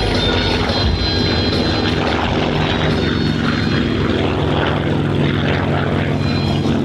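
Aircraft engine noise, loud and steady, with a low hum running through it.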